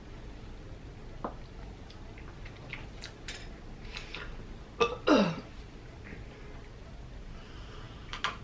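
Person eating a melted Wendy's Frosty with a spoon and sipping it from the cup: soft mouth clicks, smacks and swallows, with a short sound falling in pitch about five seconds in.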